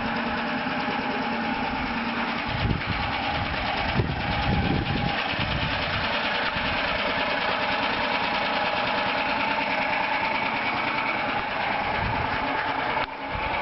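Small gasoline engine of a carbon monoxide gopher fumigation machine running steadily, with two short knocks about three and four seconds in.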